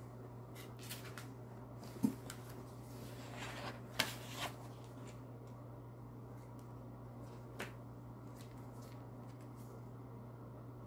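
Oracle cards being handled: a short rustling shuffle about three to four seconds in, and a few sharp taps of cards, over a steady low hum.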